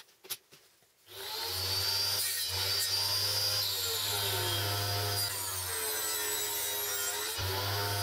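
A few light clicks, then from about a second in a table saw runs steadily, its blade cutting wood, with a strong low motor hum under the cutting noise.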